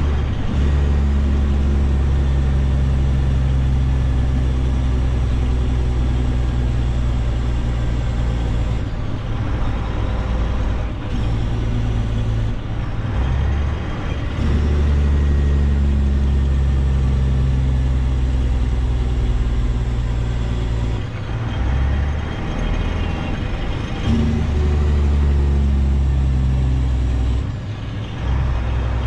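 Diesel semi-truck engine running steadily, its pitch shifting abruptly a few times.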